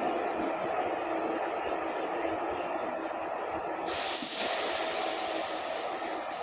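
Passenger coaches rolling past on the rails, a steady noise of wheels on track with a thin steady squeal from the wheels. A brief sharp hiss cuts in about four seconds in.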